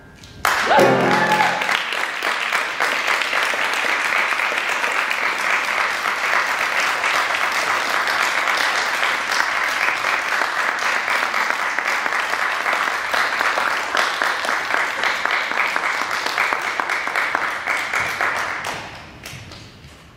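Audience applauding steadily after a sung piece, with one voice calling out briefly about a second in. The applause dies away near the end.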